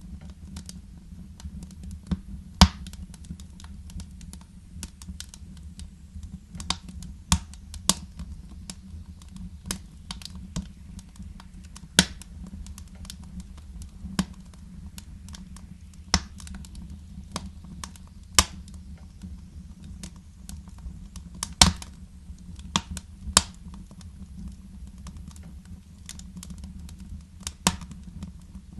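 Fireplace fire crackling: irregular sharp pops and snaps, a few of them louder, over a steady low rumble.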